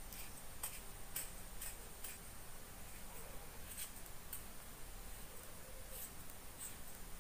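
Faint, irregular light clicks and scrapes from the battery housing of a BOYA BY-M1 lavalier microphone being screwed shut by hand.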